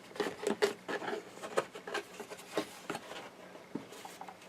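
Graphics card box packaging and paper inserts being handled: a run of light rustles and taps that thins out after about three seconds.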